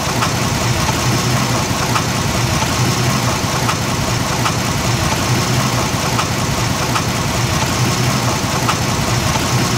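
Ford Explorer engine idling steadily with sharp ticks coming from inside the engine. The ticking is traced to the chain tensioner, whose spring is stiff and starved of oil.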